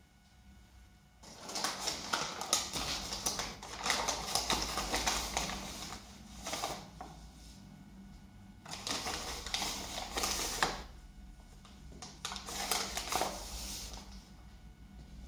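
Crinkling and rustling of a flour packet in several bursts as it is handled and flour is shaken out onto the counter.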